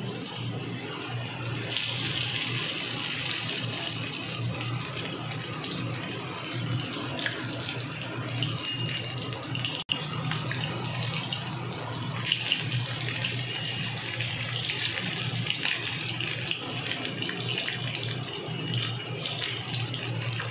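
Battered chicken pakoras deep-frying in hot oil in an aluminium kadai: a steady sizzle that grows louder about two seconds in.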